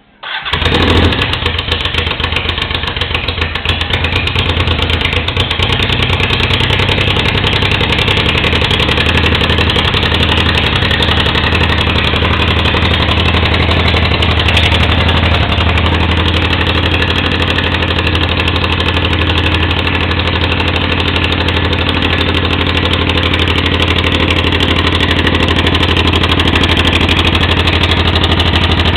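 Honda Africa Twin XRV750's V-twin engine, with no silencer fitted, starts up suddenly and then settles into a steady, loud idle.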